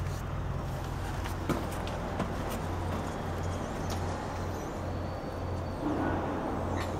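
A steady low mechanical hum, with a couple of light clicks about a second and a half in and a brief scuffing noise near the end.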